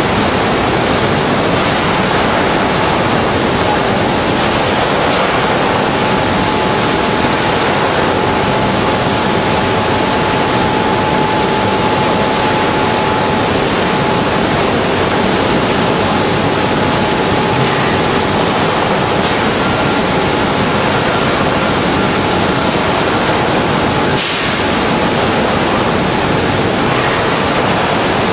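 Steady, loud rushing noise of a magnesium wire treatment station at work, magnesium wire reacting violently in a ladle of molten iron to make ductile iron, with the station's fume extraction. A faint steady whine sits under it through the middle, and the noise briefly dips about 24 seconds in.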